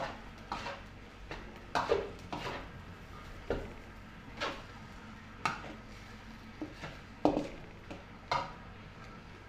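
Metal spatula scraping and knocking against a steel wok while stir-frying rice, about a dozen irregular strokes roughly once a second.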